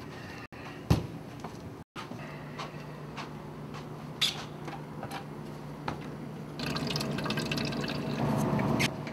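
Water from a drinking fountain pouring into a plastic water bottle, starting about two-thirds of the way through and running to the end. Before it there is a sharp knock about a second in, then a few light clicks over a steady low hum.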